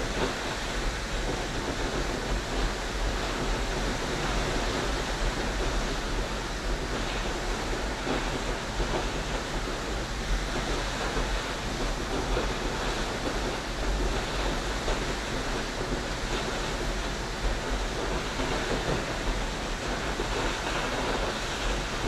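Waterfall rushing steadily: an even, unbroken noise of falling water with a deep low rumble.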